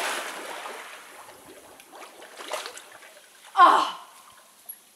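Water from a bucket dousing splashing on poolside tiles and fading away, then about three and a half seconds in a short, loud cry from a person.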